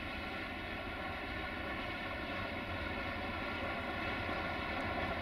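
LDE2100 (class 060-DA) diesel-electric locomotive's Sulzer diesel engine running with a steady drone, growing slowly louder as the locomotive approaches.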